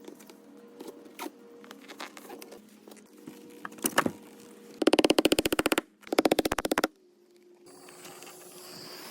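Two bursts of rapid, evenly spaced mechanical knocking, each about a second long, about five and six seconds in, like a hammering power tool, with lighter scattered clicks before them.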